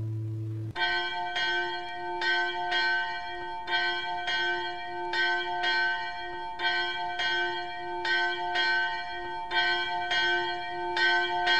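A bell ringing over and over, struck about twice a second, starting about a second in as the tail of a guitar chord cuts off.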